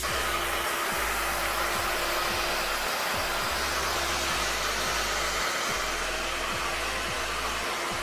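Handheld hair dryer blowing steadily, a constant rush of air over a steady motor hum.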